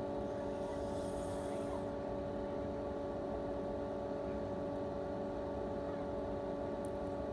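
Electric pool pump running, a steady hum with several fixed tones as it circulates pool water through the solar heater.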